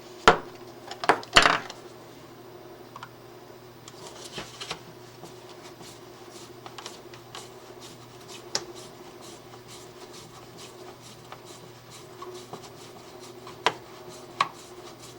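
Hands working small plastic and metal electrical parts into a box: a few sharp knocks and clicks in the first second and a half, then light rubbing and scraping with occasional clicks, over a steady low hum.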